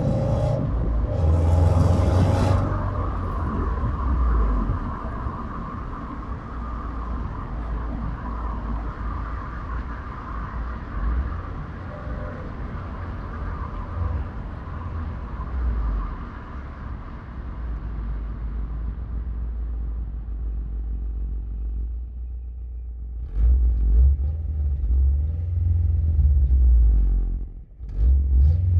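2018 Subaru WRX STI's turbocharged EJ257 flat-four engine running with a deep, steady rumble. It gets louder again about three-quarters of the way through and drops away sharply for a moment just before the end.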